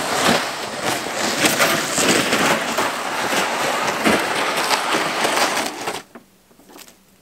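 Loud scraping and crunching of a loaded plastic sled dragged over crusted snow, with many small cracks as the crust breaks. It stops suddenly about six seconds in when the sled comes to rest.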